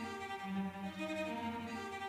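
Background music of bowed strings, violin and cello holding sustained notes over a low line that repeats about every second and a half.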